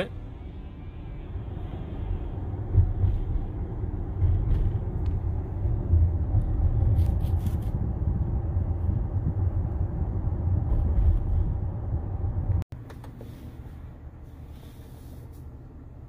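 Low road and tyre rumble inside the cabin of a Tesla electric car driving at about 25 mph. It cuts off abruptly about three-quarters of the way through, and a quieter steady cabin hum follows.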